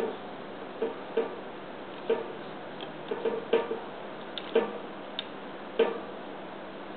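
HP laptop keyboard keys being pressed and slapped by a toddler's hand: about ten irregular clicks and knocks, some in quick pairs.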